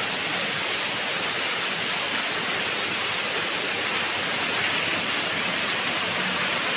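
Floodwater gushing up out of an overwhelmed floor drain and rushing across a flooded floor in a rainstorm flood: a steady, even rush of water.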